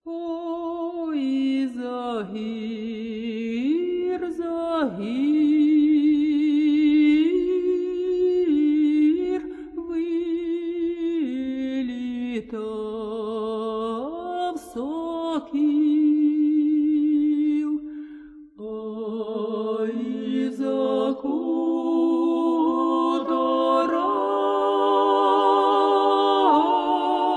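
Unaccompanied singing. A voice with wide vibrato holds long, sliding notes, and after a short break about 18 seconds in, several voices sing together.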